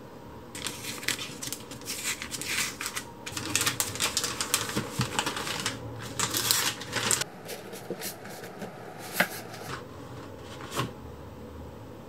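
Paper gift wrapping and tissue paper crinkling and rustling as they are peeled off a cardboard box, dense for several seconds. After that it thins to a few sharp clicks and taps as the box is handled.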